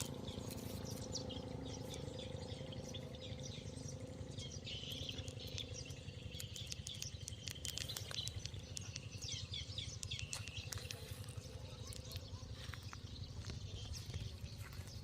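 Faint birds chirping in the background over a steady low hum, with scattered small clicks.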